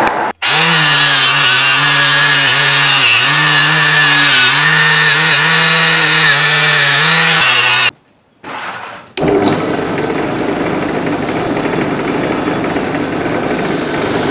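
Belt-driven bench wire wheel scrubbing a metal part held against it: a harsh scratching over a motor hum whose pitch sags and recovers as the part is pressed in. After a short break about eight seconds in, the brushing carries on as a dense, even scratching.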